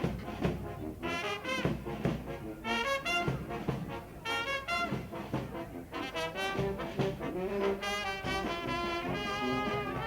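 Brass street band playing a tune: several horns carrying a melody over a steady drum beat.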